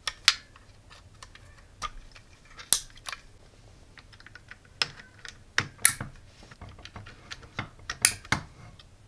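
Sharp plastic clicks and taps as RJ25 cable plugs are pushed into the ports of the mBot Ranger's clear plastic main-board case and the cables are handled. The clicks come irregularly, a second or two apart, with a few louder snaps.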